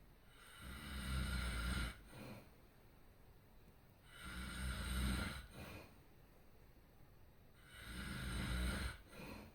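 A person snoring heavily and rhythmically: three long, rasping snores with a deep rumble, about every three and a half seconds, each followed by a short, weaker breath sound.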